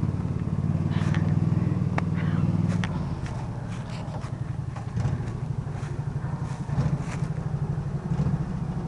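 Coot ATV engine running steadily as the vehicle crawls off-road, louder for the first three seconds and then easing off, with sharp crackles and clicks of leaves and twigs under the tyres.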